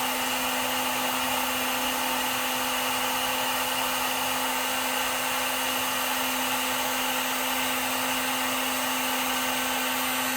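Electric heat gun running steadily on high, its fan blowing with a steady hum over an even rush of air, as it heats a solder-seal wire connector.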